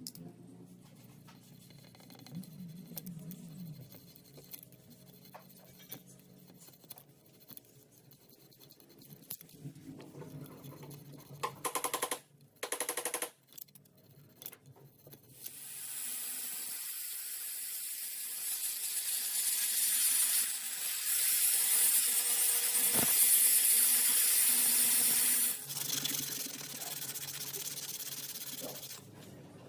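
Light clicks and knocks of handling tools and wood. Then, about halfway through, a power drill runs for roughly ten seconds, growing louder after a few seconds and stopping abruptly near the end.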